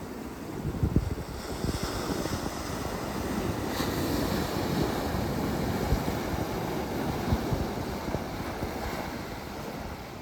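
Sea waves washing in, a steady rush of surf that swells about a second and a half in and eases toward the end. Wind buffets the microphone with low thuds at times.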